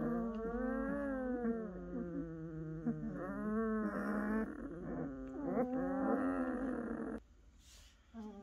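A litter of German shepherd puppies whining and crying, several voices overlapping, cutting off abruptly about seven seconds in.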